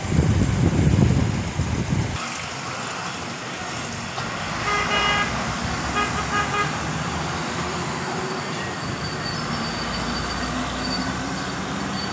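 Road traffic: a loud low rumble for the first two seconds, then a vehicle horn honks twice, about five and six seconds in, over the steady running of a heavy truck's engine as it passes.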